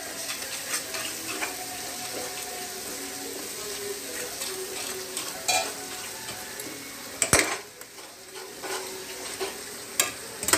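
Onion-tomato masala sizzling in oil in a small steel kadhai while a steel spoon stirs and scrapes it, with clicks and a few sharp knocks of the spoon against the pan, the loudest about seven seconds in.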